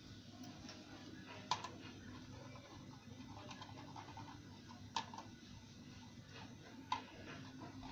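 Light clicks and taps of motorcycle clutch parts being handled during clutch-plate fitting, three sharper clicks a couple of seconds apart, over a faint low hum.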